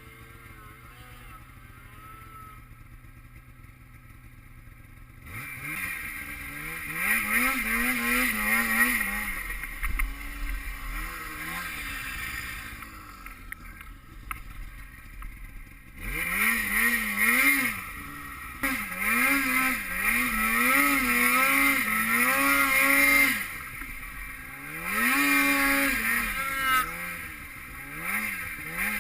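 Snowmobile engine. For the first few seconds it runs low and quiet, then it is throttled up in several stretches, its pitch climbing and falling again and again as the sled accelerates and eases off, with a hiss over it while under power.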